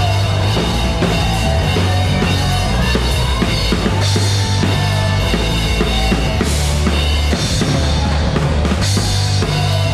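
Live rock band playing through the stage PA during a soundcheck: a drum kit with kick, snare and cymbals heard up close over a bass guitar line. Cymbal crashes ring out about four, six and a half, and nine seconds in.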